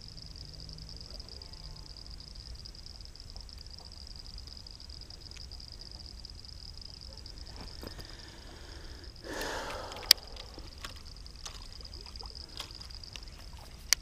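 Steady high-pitched insect chorus, one even shrill tone. A brief rustle about nine seconds in is followed at once by a sharp click, and there is another click near the end, amid faint handling ticks as the soft-plastic lure is rigged on its hook.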